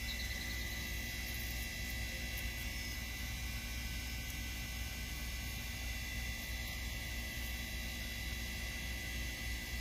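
A steady low hum with a thin high whine over it, unchanging and with no distinct events.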